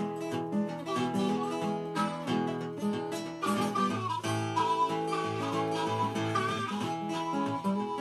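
Background music: an upbeat boogie played on acoustic guitar, with deeper bass notes joining about halfway through.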